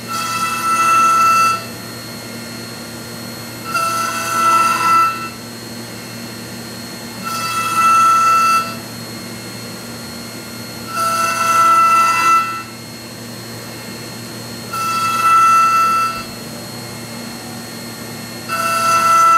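Five-axis CNC milling machine cutting a katsura wood carving: a steady spindle whine, with a pitched buzzing cut rising and falling about every three and a half seconds, six times, each cut lasting about a second and a half as the small cutter works round the carved screw-thread grooves.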